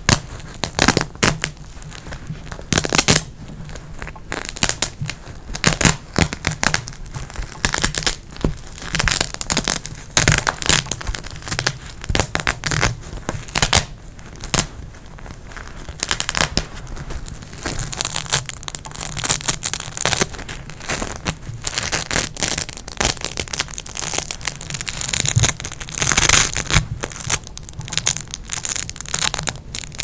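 Velcro hook-and-loop strips sewn on a terry bath towel being scratched and pulled apart by fingers: an unbroken run of irregular, short crackling rips.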